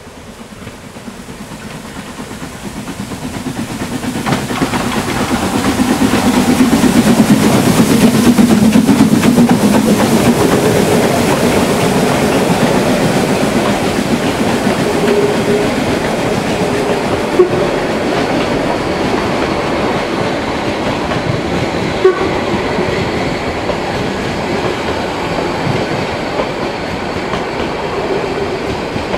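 Narrow-gauge 2-10-2T steam tank locomotive working uphill as it approaches and passes, its sound building to a peak about eight seconds in. A train of coaches then rolls past with a steady rumble, with clicks from the wheels, two of them sharp.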